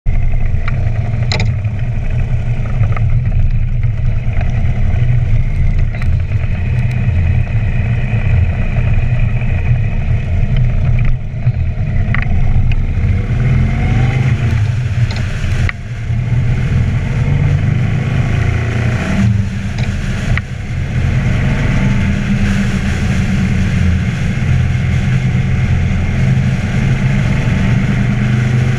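The 103-cubic-inch V-twin of a 2012 Harley-Davidson Ultra Limited, fitted with an Andrews 57H cam and true dual exhausts, running under way with a steady deep exhaust rumble. The level dips briefly a few times and the engine pitch rises again in the middle, as the throttle is eased and reopened.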